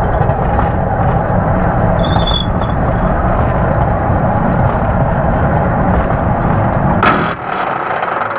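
Roller coaster train running along its track: a steady, loud noise of wheels on rail, with a brief change about seven seconds in.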